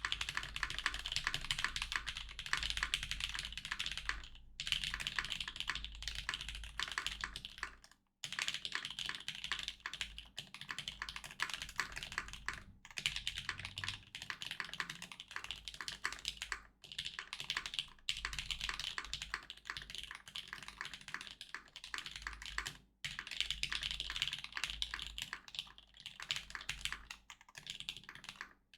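Fast continuous typing on a mechanical keyboard, a Satisfaction 75 R2 with a half FR4 plate, JWick Black linear switches and GMK Cafe keycaps: a dense run of keystroke clacks broken by a few brief pauses.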